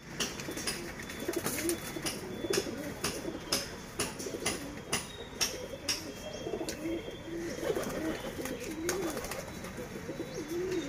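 Domestic pigeons cooing over and over in wavering low calls, with many sharp clicks scattered throughout.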